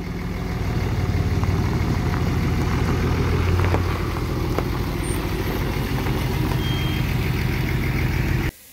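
Turbo Cummins diesel engine of a 2007 Dodge Ram 3500 pickup running steadily at low revs, louder over the first second, then cut off abruptly near the end.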